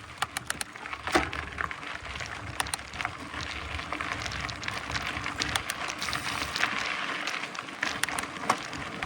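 Mountain bike riding over a dirt trail: a steady rush of tyre noise with frequent sharp clicks and rattles from the bike, growing a little louder toward the end.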